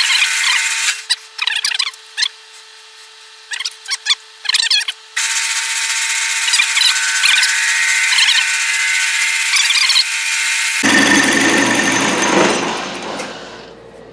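Lathe spinning a wooden pattern disc while a parting tool faces its side flat, the cut squealing over a steady motor whine. The cut comes in short passes for the first few seconds, then runs steadily. About eleven seconds in the sound turns rougher and lower, and it fades away near the end.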